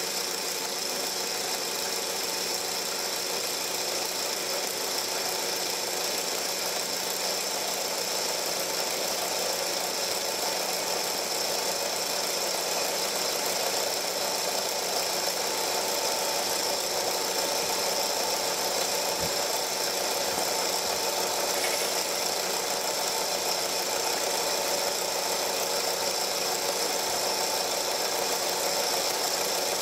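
Film projector running steadily: an even motor whir and mechanical rattle with a constant hiss, heard in place of a soundtrack while silent home-movie film is shown.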